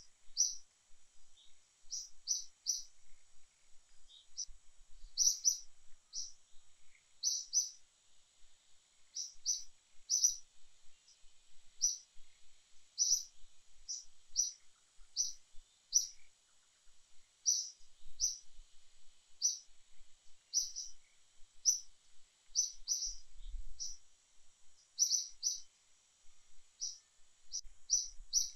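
A bird calling over and over: short, high chirps, singly or in quick twos and threes, about once a second, over a faint steady high hiss.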